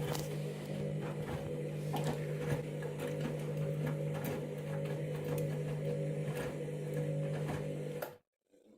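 Candy washing machine's drum motor running with a steady hum and scattered light clicks, as the drum turns during the KG detector's load-sensing stage. The sound cuts off abruptly about eight seconds in.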